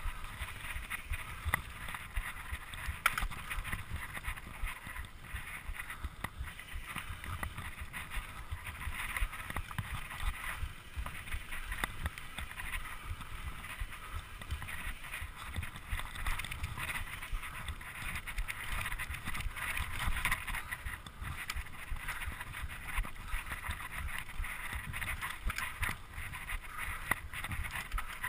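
Mountain bike ridden fast on dirt singletrack: wind buffets the microphone while the tyres roll over the dirt and the bike rattles, with frequent short knocks over bumps.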